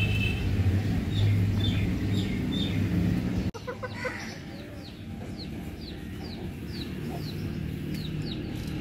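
Backyard chickens clucking and calling, with a run of short, high, falling chirps about twice a second through the second half. A steady low hum under the first few seconds cuts off abruptly.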